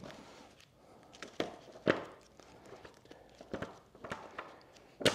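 Pages of a thick hardcover book, Chapman Piloting and Seamanship, being leafed through by hand: soft paper rustling with a few crisp page flicks, the sharpest about two seconds in and just before the end.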